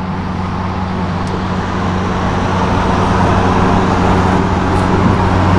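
A steady mechanical hum with an even rushing noise behind it, slowly getting a little louder.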